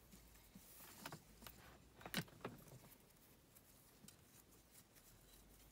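Near silence with a few faint ticks and rustles of fingers handling a cord while tying it into a knot, the sharpest about two seconds in.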